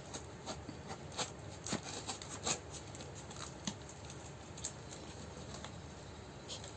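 Scattered light clicks and scratches from packaging being handled, coming thickest in the first three seconds and thinning out after that.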